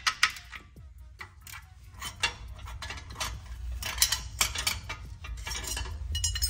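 A socket wrench working bolts under a car, then a loose steel underbody bracket being handled: irregular metal clicks, clinks and rattles, with a few sharper knocks at the start and near the end.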